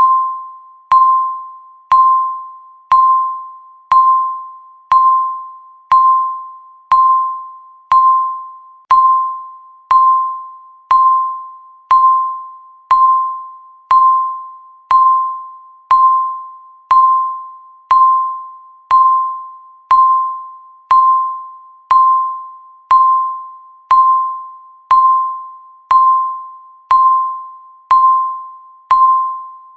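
Countdown timer's electronic beep: a single clear chime-like note struck once every second, each one ringing out and fading before the next, marking off the seconds.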